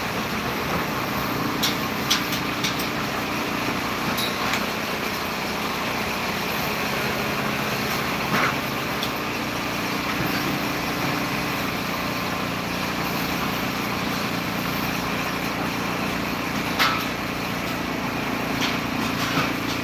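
An engine running steadily, with a few sharp clicks and knocks now and then.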